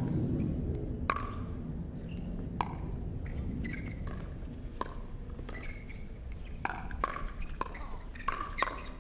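A pickleball rally: paddles striking the hollow plastic ball in sharp knocks, about eight of them, coming quicker near the end.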